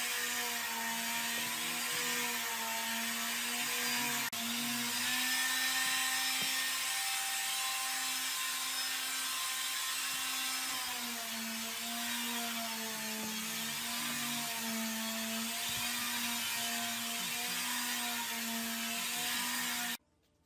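Electric power tool motor running as it works wood, its hum wavering slightly in pitch under load over a hissing, rushing noise; it stops abruptly near the end.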